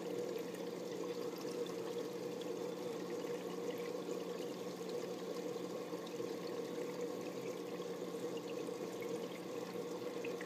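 Aquarium water circulating: a steady pouring, trickling flow with a constant low hum under it.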